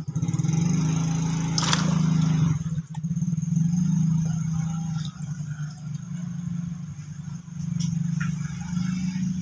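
A motor running steadily with a low hum, and a short sharp noise about two seconds in.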